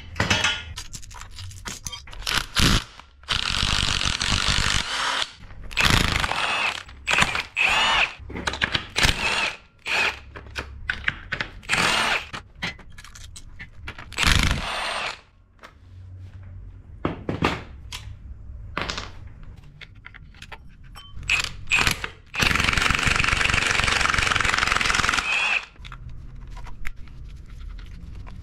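Cordless power tool running bolts off an engine block in repeated bursts, the longest about three seconds near the end, with short clicks and knocks of tools and parts in between.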